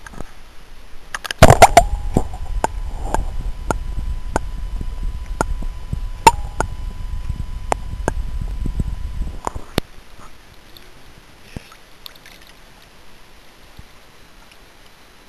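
Water sloshing and gurgling around a waterproof camera. It begins with a sudden loud splash about a second and a half in, then a heavy low rumble with sharp clicks about twice a second for some eight seconds, and it stops abruptly, leaving only faint sounds.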